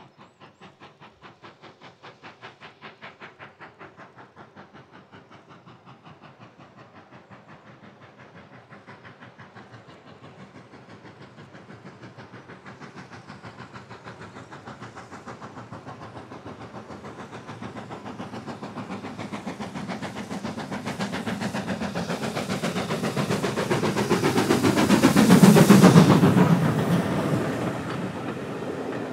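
GWR Manor class two-cylinder 4-6-0 steam locomotive 7828 Odney Manor working a train, its exhaust beating in an even rhythm that grows steadily louder as it approaches. It is loudest as it passes near the end, then the coaches roll by.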